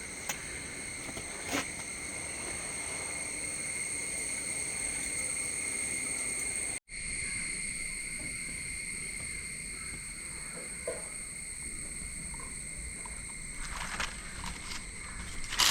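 Steady high-pitched insect drone, broken once by a split-second gap about seven seconds in.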